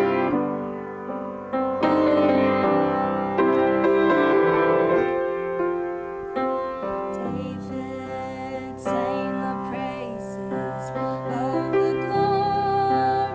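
Piano music, chords and melody notes ringing on into one another.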